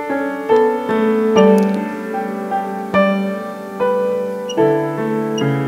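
Slow instrumental music: sustained chords on a keyboard instrument, a new chord struck every half second to a second or so.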